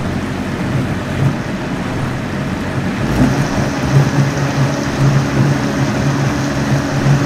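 High-powered countertop blender running at speed, its motor whirring as it purées a full jar of liquid broth with chilies and roasted vegetables. The sound gets a little brighter and louder about three seconds in.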